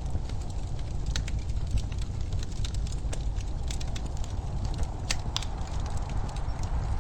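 Wood fire in a fireplace crackling, with scattered sharp pops and snaps over a steady low rumble; the loudest pop comes about five seconds in.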